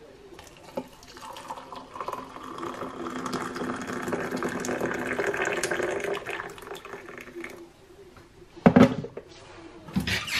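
Hot water poured from an electric kettle into a ceramic mug of coffee with a metal spoon in it, a steady filling splash for about six seconds. Near the end comes a loud clunk as the kettle goes back down, then a further knock.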